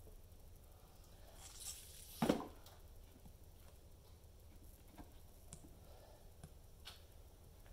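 Faint handling noises from hands working a plastic syringe and an orange. A short rustle is followed by a soft knock about two seconds in, then a few small clicks.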